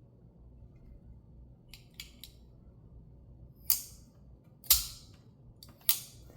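Reassembled Rone titanium folding knife being test-flipped on its pivot: a few light clicks, then three sharp snaps of the blade locking open or shut, about a second apart.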